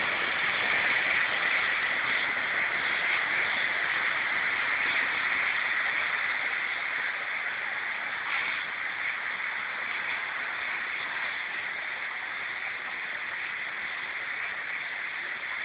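Steady hiss of heavy rain falling on a flooded street and standing water, slowly getting quieter.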